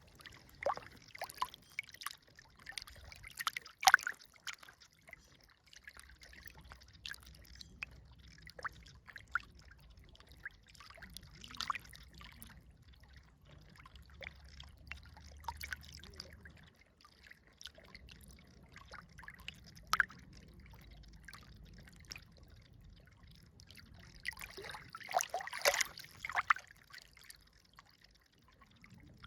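River water trickling and splashing in an irregular patter of small splashes, with a louder cluster about twenty-five seconds in, over a faint low rumble.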